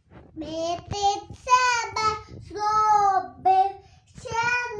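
A young girl singing a Ukrainian koliadka (Christmas carol) unaccompanied, in short held phrases with a brief pause near the end.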